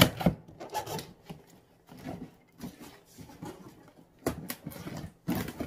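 Hands handling a large cardboard shipping box: scattered scrapes, taps and rustles of cardboard, with a louder knock near the end.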